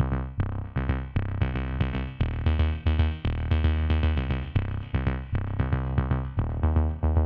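Electronic background music with a drum-machine beat and synthesizer notes.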